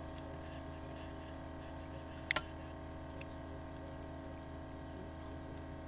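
A steady low mechanical hum made of several constant tones, broken by a sharp double click about two seconds in.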